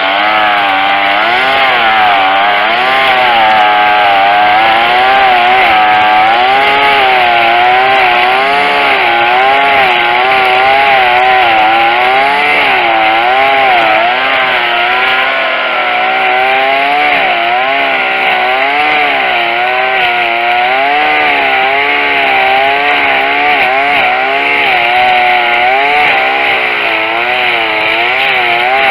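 Tanaka 22cc two-stroke string trimmer running hard without a break, its engine pitch rising and falling every second or so.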